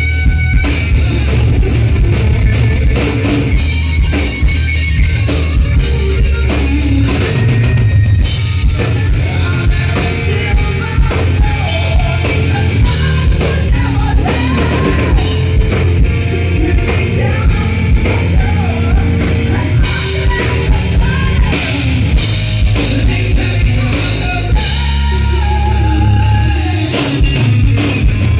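Live hard rock band playing loud: distorted electric guitar, bass and drum kit with a lead vocalist singing over them, heard through the venue's PA.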